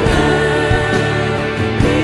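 Live worship band playing a Christian worship song: women singing into microphones over electric bass, electric and acoustic guitars and drums.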